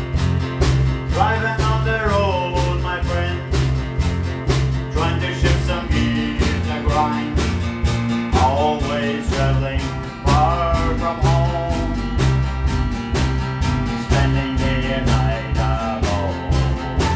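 Intro music: an upbeat country-style song with a steady drum beat, guitar and a singing voice.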